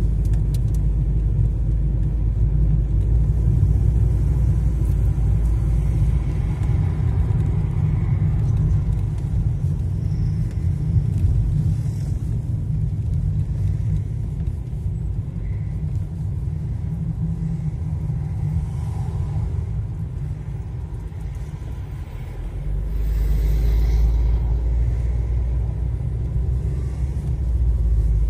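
Steady road and engine rumble heard inside the cabin of a moving car. It eases a little after about twenty seconds, then swells again.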